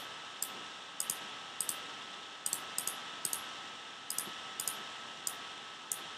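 Computer mouse button clicks, sharp and many of them in quick pairs, about every half second, over a steady background hiss.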